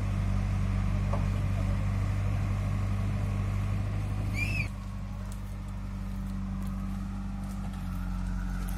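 JCB backhoe loader's diesel engine running steadily with a low hum, with a brief high chirp just before the middle. About halfway through the sound drops suddenly and the engine goes on quieter and more distant.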